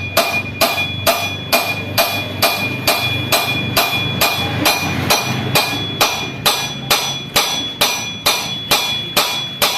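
Hammer blows on a steel cold chisel driving a stuck wheel bearing out of a motorcycle wheel hub: a steady run of sharp metal-on-metal strikes, about three a second, each with a bright metallic ring.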